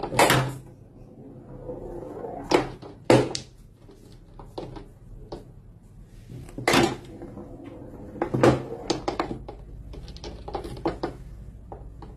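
Small billiard balls clicking against each other and knocking against the cushions and frame of a toy tabletop pool table as a cat bats them with its paw: a string of separate sharp clicks and knocks at irregular intervals.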